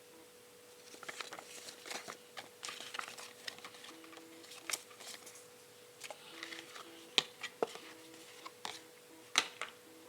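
Close-up handling sounds from unboxing a smartphone: soft rustles and light taps, with three sharp clicks in the second half, over a faint steady hum.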